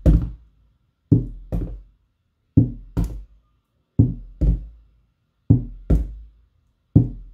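Homemade drum made from a large mineral-water jug with a head of thick adhesive tape, struck with a soft-headed mallet in a steady pattern of paired beats: two quick strokes about every second and a half. Each stroke is a deep thud that dies away quickly.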